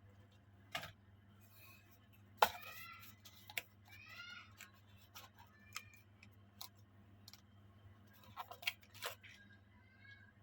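Scattered light clicks and taps of small die-cast toy cars and their packaging being handled, with two short high squeaks a couple of seconds in.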